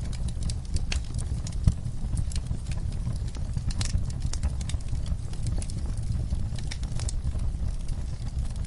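Wood fire crackling in a fireplace: irregular sharp pops and snaps over a steady low rumble of the flames, with one louder pop about two seconds in.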